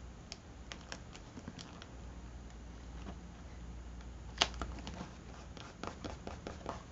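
Faint paper rustling and light taps as hands press a glued paper cutout down onto a collage journal page, with one sharper tap about four and a half seconds in and a cluster of small taps near the end.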